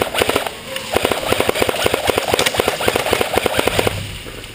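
Airsoft electric gun firing on full auto: a short burst, then a longer burst of rapid, even shots lasting about three seconds that stops about four seconds in.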